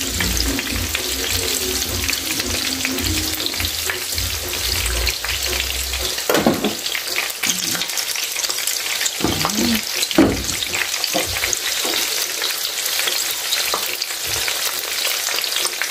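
Breaded shrimp tempura deep-frying in hot oil in a frying pan, with a steady dense sizzle and crackle. A few brief louder knocks come in the middle as the shrimp are handled in the pan.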